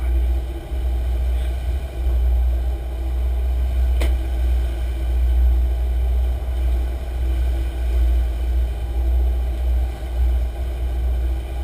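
Sportfishing boat's engines running steadily under way, a deep rumble with a steady hum, while wind buffets the microphone. A single sharp knock about four seconds in.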